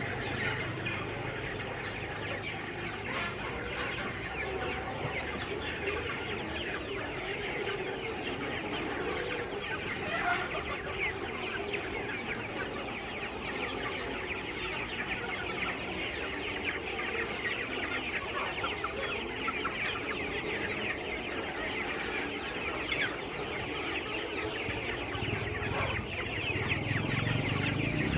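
A flock of village chickens clucking and chirping together without a break, with an occasional crow.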